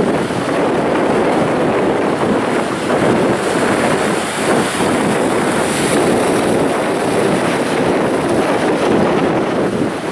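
Sea waves breaking and washing over shoreline rocks: a continuous rush of surf, with a wave crashing close by about six seconds in.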